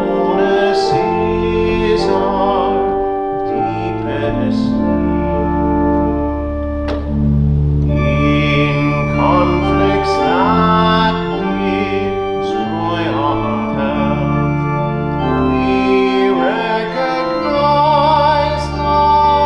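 Organ playing a hymn, with singing that wavers in vibrato at several points over the held chords.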